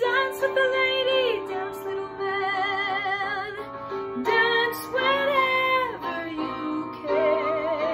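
A woman singing a Broadway show tune in long held notes with wide vibrato, with instrumental accompaniment, phrase after phrase with short breaths between.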